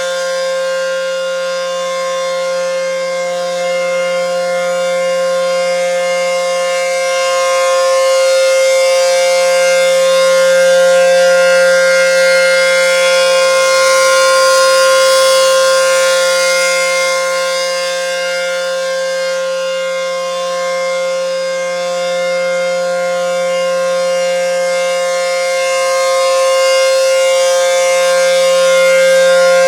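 ACA P-10 outdoor warning siren sounding a steady tone at full speed, its loudness swelling and fading slowly. Right at the end its pitch begins to fall as it starts to wind down.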